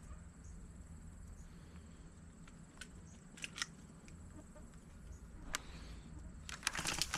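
Quiet outdoor background with a low rumble, broken by a few sharp clicks and then a quick run of clicks near the end.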